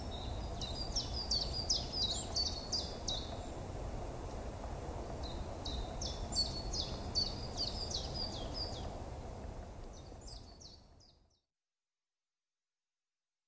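Natural outdoor ambience: a small songbird sings three runs of quick, repeated chirping notes over a steady low rumble, and the whole fades out to silence about eleven seconds in.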